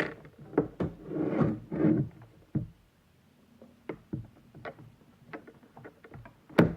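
Irregular clicks, taps and knocks of small plastic toy parts being handled and fitted together, with a brief rustling stretch early on and one sharp, louder knock near the end.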